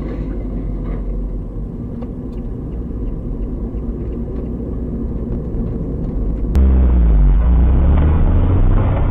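Car cabin and road noise picked up by a dashcam microphone: a steady low rumble from the moving car. About two-thirds of the way through it turns abruptly louder and more muffled, with a low pitch sweeping downward soon after.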